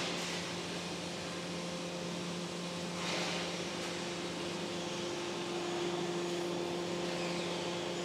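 Cable tray roll forming machine running: a steady hum from its electric drive motors, with a faint hiss that swells briefly about three seconds in.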